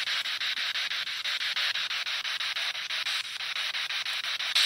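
Radio static from a scanning radio used as a ghost box: a steady hiss chopped about seven or eight times a second as it sweeps, with a brief louder crackle near the end.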